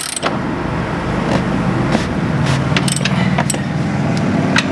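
A motor vehicle's engine running on the street, a low hum that swells through the middle and end, with several sharp metallic clicks and clinks scattered over it.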